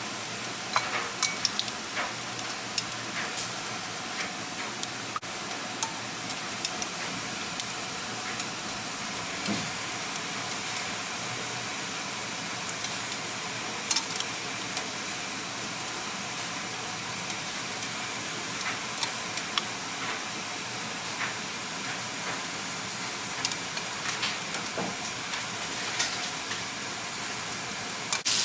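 Battered bass nuggets frying in hot oil: a steady sizzle with scattered crackles and pops.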